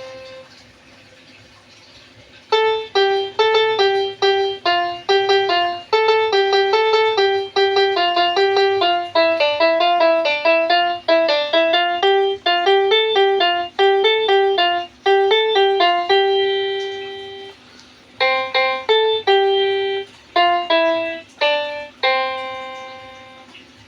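A toy basuri piano keyboard playing telolet bus-horn tunes, one note at a time. After a couple of seconds of quiet, a quick melody of bright single notes starts. A short pause comes about three-quarters through, then a few more notes, the last one fading.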